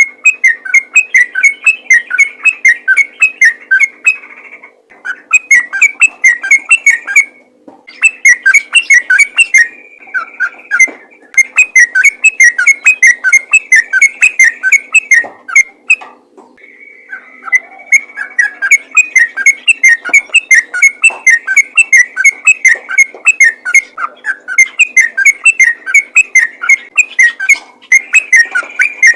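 Sooty-headed bulbul (trucukan) singing in rapid, near-continuous runs of short whistled notes, broken by a few brief pauses.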